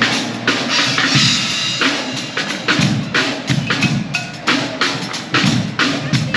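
Guggenmusik carnival band drumming, bass drums and snares beating a steady, driving marching rhythm.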